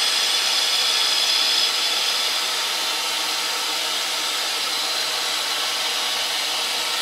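Grizzly G0752 metal lathe running steadily while the tool takes a light 70-micron finishing cut along a profiled metal part. A high-pitched tone over the machine's whir fades about two seconds in.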